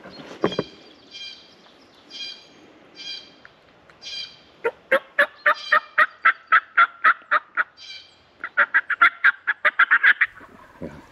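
Turkey call yelping to a flock of jakes: after a few soft, high notes, two loud runs of rapid yelps at about five notes a second, the second run quicker.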